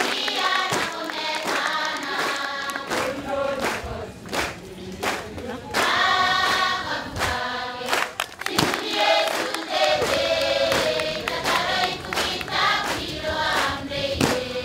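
A choir of many voices singing together.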